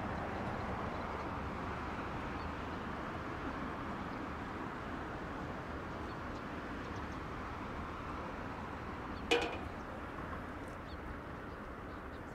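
Steady outdoor background noise at the water's edge, like wind and distant traffic, with one short sharp sound about nine seconds in.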